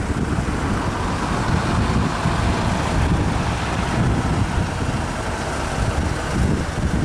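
Steady low rumble of a small truck's engine as it slowly reverses a small trailer, mixed with wind buffeting the microphone.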